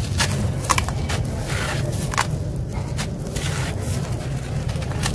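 Gritty crushed stone chips crunching and rattling as hands squeeze handfuls and let them fall back into a plastic tub: irregular crisp clicks and crackles over a steady low hum.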